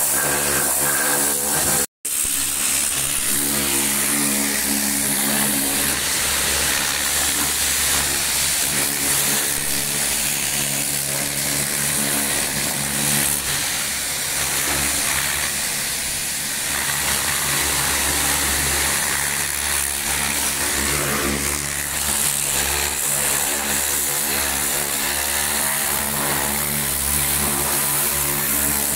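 Pressure washer running steadily, its motor and pump humming under the hiss of the water jet as it sprays down a tractor's engine. The sound cuts out for a split second about two seconds in.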